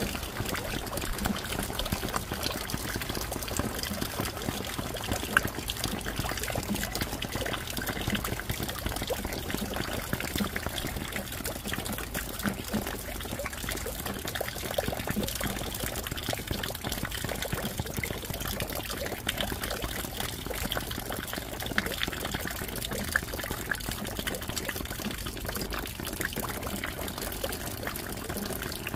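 Steady rain falling, a continuous hiss dotted with many separate drop hits, with water running off.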